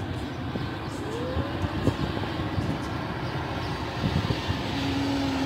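Twin-engine jet airliner on final approach, its engines a steady rumble growing slowly louder as it comes nearer.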